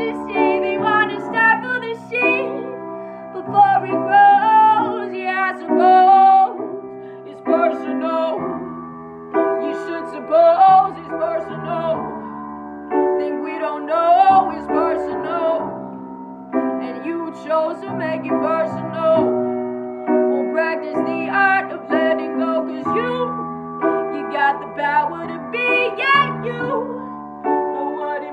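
A woman singing over piano accompaniment, her voice sliding and wavering through long melodic runs above sustained chords.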